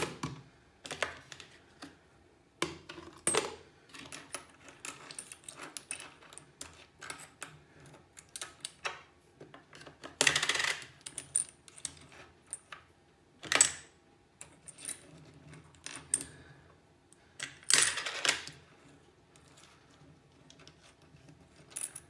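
Coins clicking and clinking as they are handled and put in one by one, with scattered sharp clicks and a few longer rustling clatters partway through.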